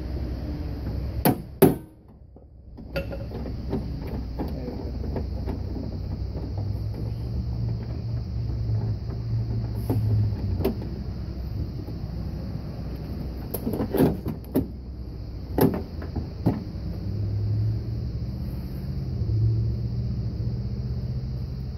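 A socket and extension clicking and knocking against a bolt in a bare steel car door frame: a few sharp metallic knocks, two near the start and a small cluster past the middle, over a steady low rumble. The sound drops out briefly about two seconds in.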